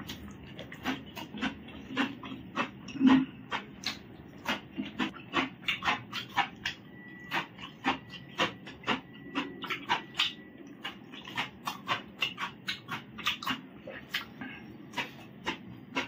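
Close-up eating sounds of someone chewing and smacking his lips while eating with his hand: a quick, irregular run of wet clicks and smacks, several a second, with one louder low thump about three seconds in.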